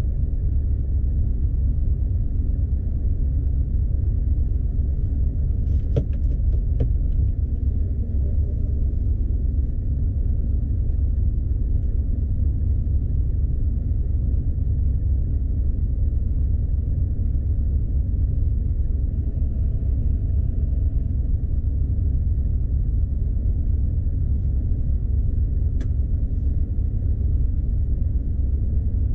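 Heavy Scania truck's diesel engine idling, a steady low rumble heard from inside the cab, with a few light clicks about six seconds in and another near the end.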